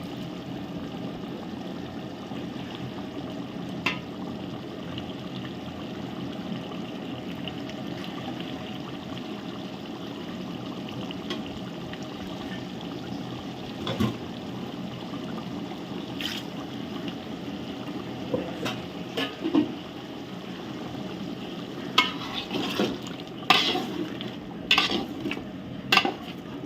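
A large pot of chicken kurma cooking with a steady bubbling hiss after the ground coconut and cashew paste has gone in. Near the end a ladle stirs it, knocking and clinking against the pot several times.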